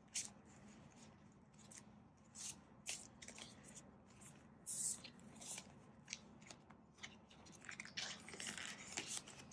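Soft rustling and crinkling of polymer banknotes and a plastic cash envelope being handled. The plastic is slid into a ring binder, with a brief louder rustle about five seconds in and a denser patch of rustling near the end.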